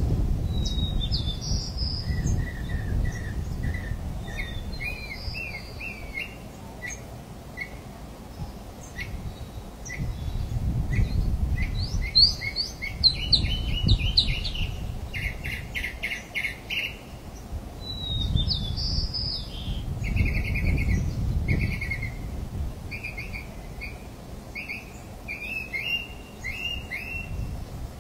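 Several wild birds chirping and trilling in many short, quick notes, over a low, uneven rumble that swells and fades.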